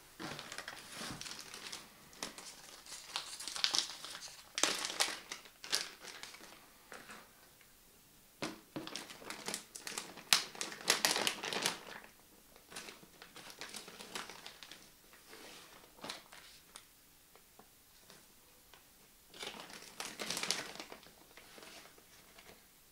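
Clear plastic bag crinkling as it is handled and opened, in irregular bursts with quieter gaps between them.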